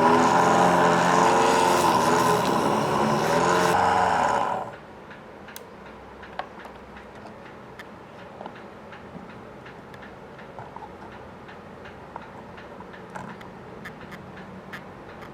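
Small electric motor of a homemade PVC mini lathe running with a steady whine whose pitch wavers slightly, then cut off suddenly about four and a half seconds in. Faint scattered clicks and taps follow.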